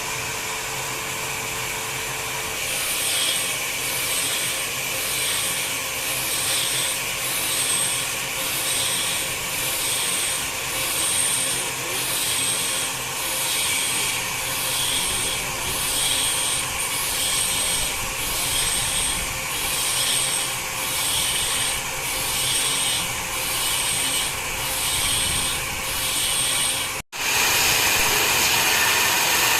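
Wood being sawn on a cutting machine: a rasping stroke repeats a little more than once a second over the steady machine noise. Near the end the sound cuts off abruptly and a louder, steady machine noise takes over.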